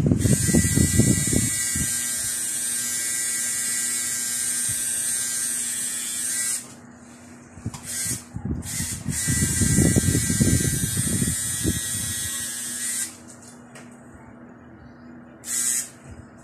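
Electric tattoo machine buzzing steadily while inking skin, stopping about six and a half seconds in, giving a couple of short bursts, running again for about four seconds, then one short burst near the end. Low knocking and rubbing sounds under the buzz at the start and around ten seconds in.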